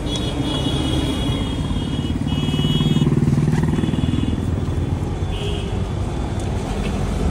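Road traffic: a motor vehicle engine rumbles past close by, loudest about three seconds in, over steady traffic noise. Thin high tones come and go above it.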